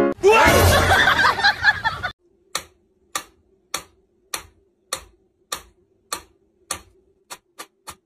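A mechanical pendulum metronome ticking, one sharp tick about every 0.6 s, then twice as fast near the end, over a faint steady hum. It follows a loud, dense burst of sound lasting about two seconds at the start.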